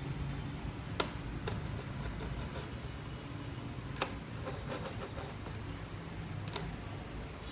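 A few light, sharp clicks of small tools and parts being handled on a laptop's case during disassembly, four of them spread out, over a low steady hum.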